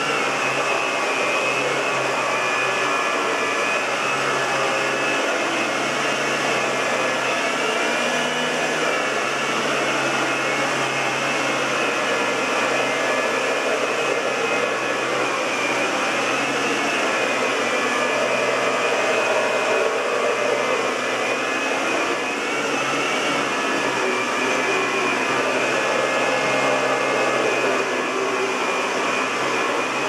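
Electrolux Silverado (model 1505) canister vacuum cleaner running steadily, a continuous rushing hiss with a wavering high whine, as its nozzle is pushed back and forth over carpet.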